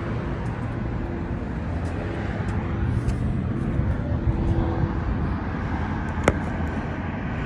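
Steady rumble of road traffic, with a single sharp click about six seconds in.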